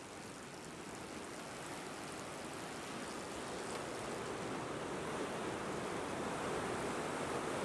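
A steady rushing hiss with no clear pitch, growing slowly louder.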